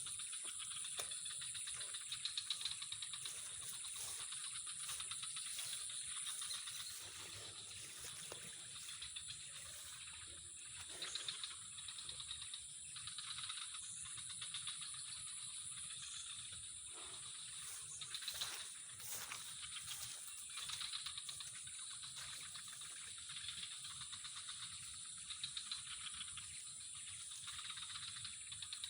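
Steady chorus of insects chirring at a high pitch, with a few faint taps and knocks.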